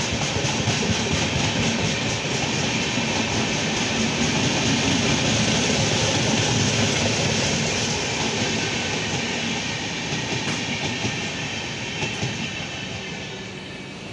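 AC three-tier passenger coaches of an Indian Railways express rolling past at speed: a steady rumble and hiss of steel wheels on rail, with clicking over the rail joints. It fades over the last several seconds as the train goes by.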